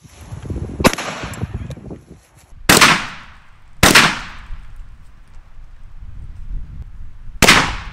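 Shotgun fired three times while being sighted in with a turkey choke: two shots about a second apart near the middle and a third near the end, each trailing off in a short echo. A sharp crack comes about a second in.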